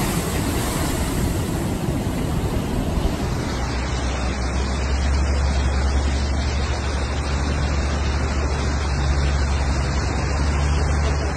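Storm waves crashing over a seafront promenade, a dense rush of noise. About three and a half seconds in it cuts to floodwater rushing through a street, with a steady deep rumble underneath.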